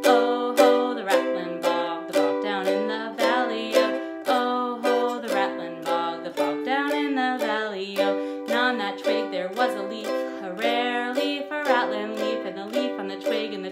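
A woman singing a verse of a cumulative folk song to her own strummed ukulele accompaniment, with steady chord strums under the voice.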